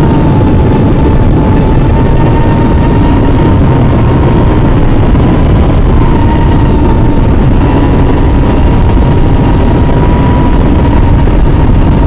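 Brushless motors of a small 3-inch FPV quadcopter in flight, heard from on board the drone: a loud, steady rushing noise with a whine whose pitch wavers slightly as the throttle shifts.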